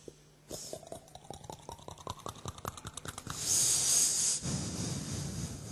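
A man's mouth imitation of a drink being opened and poured into a glass. A single pop, then a fast run of glugging clicks that rises steadily in pitch like a glass filling up, then a loud fizzing hiss that settles into a lower rushing fizz.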